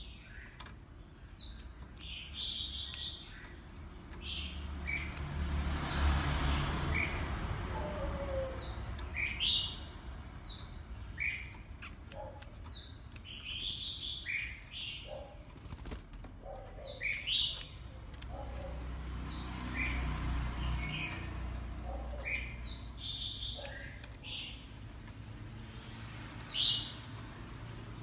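Oriental magpie-robin singing: a run of short, clear whistled notes, most sliding downward, about one or two a second, with some lower notes mixed in. Low rumbling noise comes in around six and twenty seconds in.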